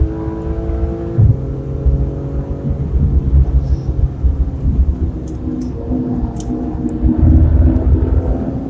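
Porsche 991 RS's naturally aspirated flat-six heard from inside the cabin: revs rising, dropping sharply about a second in, then running at steadier, wavering revs over a heavy road rumble.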